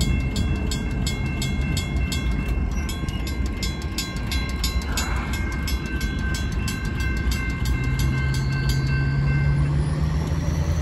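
Grade-crossing warning bells ringing: a WCH mechanical bell's rapid, even strikes together with a General Signals Type 2 electronic bell's ringing tones, while the gates rise after the train has cleared. The bells stop about a second before the end as the crossing deactivates, and a pickup truck's engine rises in pitch as it pulls across the tracks, over a steady low rumble.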